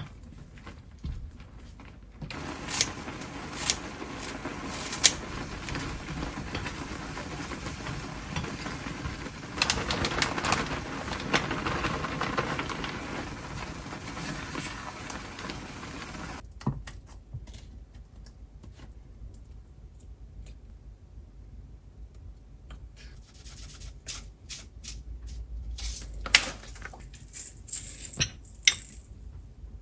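Kitchen cooking sounds: sharp clicks and knocks of utensils and containers, with a steady hiss through the first half that cuts off suddenly.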